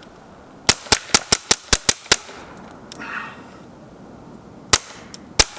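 Suppressed Ruger Mark IV .22 LR pistol firing: a quick string of about eight shots, roughly five a second, then two more single shots a few seconds later.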